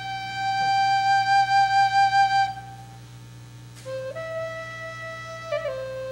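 Recorder playing a slow melody. One long held note pulses gently and dies away, and after a short pause a new phrase of held notes begins, with a quick ornament near the end.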